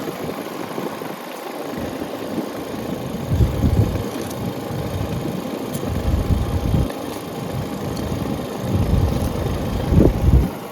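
Residential air-conditioning condenser running steadily, its outdoor fan and compressor both working. Irregular low rumbles on the microphone come and go over it.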